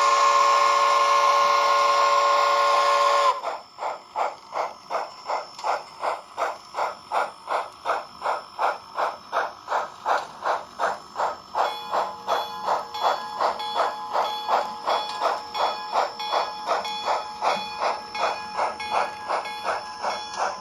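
Sound-equipped H0n3 model of a Colorado & Southern Mogul steam locomotive. Its steam whistle sounds one long chord that cuts off about three seconds in, then the engine chuffs steadily at about two to three beats a second as it hauls the train. About halfway through, a steady high tone joins the chuffing.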